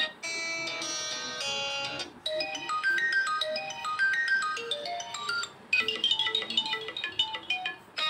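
Built-in ringtone previews from an Infinix Smart 4 phone's speaker: three different short melodies in turn, each cut off abruptly as the next one is tapped, about two seconds in and again about five and a half seconds in.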